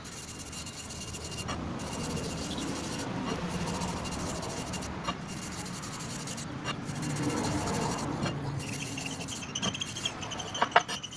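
Rasping strokes of hand abrasion on a brake part, in long passes with a short break about every one and a half to two seconds. A few sharp clicks near the end.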